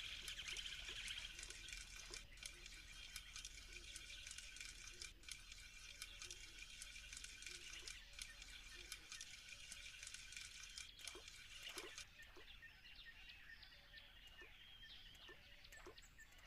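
Faint outdoor ambience: a steady high-pitched buzz with many light ticks and patters scattered through it, and a few soft knocks about twelve seconds in.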